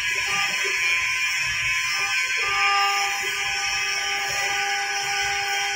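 STYLECNC STM1325 CNC wood router's spindle whining steadily as the bit carves a 3D relief into a wooden panel, with a hiss of cutting over it. The whine breaks briefly about two seconds in.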